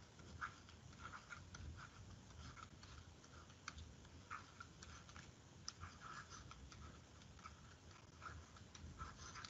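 Faint, irregular scratching and light tapping of a stylus writing on a screen, a few short strokes each second.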